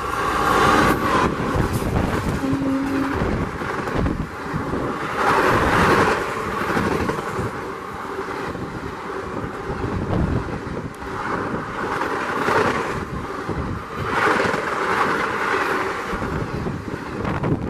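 An express train of ICF coaches hauled by a WAP-4 electric locomotive passing close at full speed. Wheels on the rails and rushing air make a loud, steady roar that surges in waves as the coaches go by, with wind buffeting the microphone.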